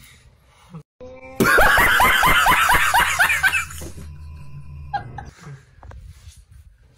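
A man laughing loudly in a rapid string of 'ha' bursts, about four a second, each dropping in pitch. The laughter lasts about two and a half seconds and comes from an edited-in meme clip.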